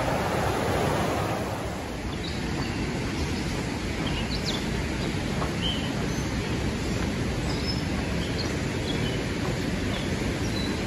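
A river running high after heavy rain, a steady rush of water, loudest at first; about two seconds in it drops to a lower, even rush. Short high bird chirps are scattered over it.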